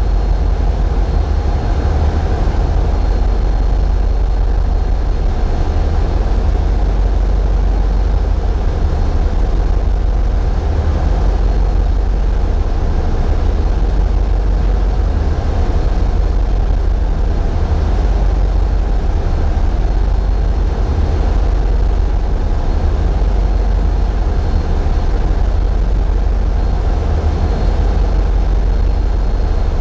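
Tugboat's engines running steadily: a loud low rumble, heavily coloured by vibration of the camera mount, with a faint steady high whine above it.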